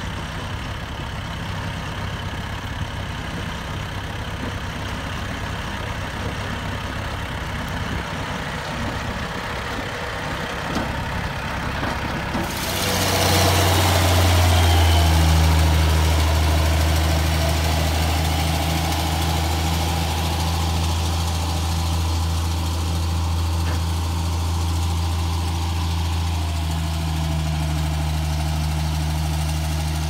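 Kubota tractor's diesel engine running while pulling a rotary tiller through soil. About twelve seconds in it gives way to a louder, steady low drone of heavy diesel earthmoving equipment, an old motor grader working a gravel driveway.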